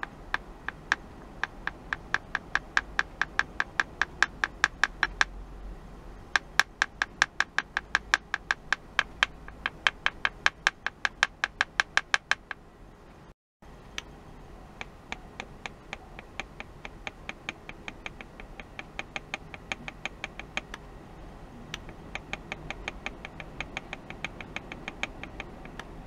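A steady, rapid series of sharp clicks, about four a second, pausing briefly twice. After a short break about halfway, the clicking goes on at the same pace but fainter.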